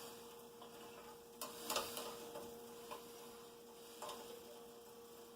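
A few light clicks and taps of a kitchen utensil against a pan, the loudest pair about a second and a half in, over a steady faint hum.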